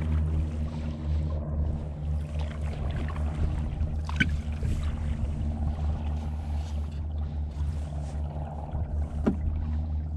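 Kayak paddling on choppy water: a steady low rumble with water sloshing and splashing, and two sharp knocks, about four seconds in and near the end.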